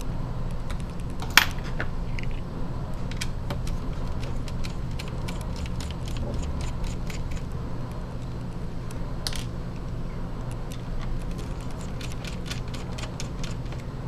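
Small screwdriver working screws out of a laptop's fan and heatsink: a run of light, irregular metallic clicks and ticks. One sharper click comes about a second and a half in and another about nine seconds in, over a steady low hum.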